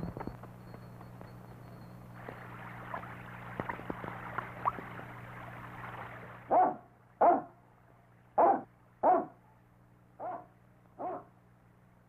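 A large cartoon dog barking six times in three pairs of short barks, the last pair fainter. The barks come after a few seconds of faint hiss.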